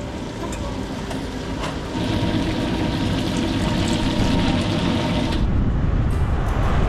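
Steady rumbling vehicle noise that grows louder about two seconds in.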